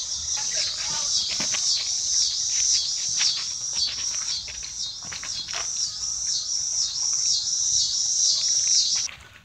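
Insects calling in a steady, even rhythm of high-pitched chirps, about three a second, cutting off suddenly near the end. A few soft clicks sound beneath them.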